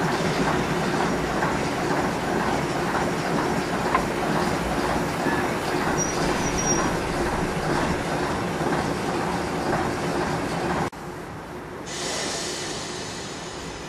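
Class 03 diesel shunter running while on the move, heard close up with its engine and wheel-on-rail noise. About eleven seconds in the sound drops abruptly to a quieter engine note, and a hiss joins a second later.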